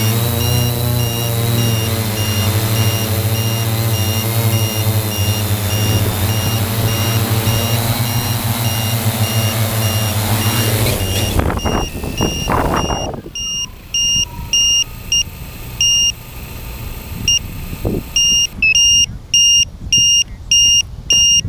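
A 3DR Y6 coaxial multirotor's motors and 15-inch propellers droning as it comes down and lands, the pitch wavering slightly, then spinning down and stopping about eleven to thirteen seconds in. A high-pitched electronic beeping runs underneath. After the motors stop it carries on as short irregular beeps, turning into a steady run of about two beeps a second near the end.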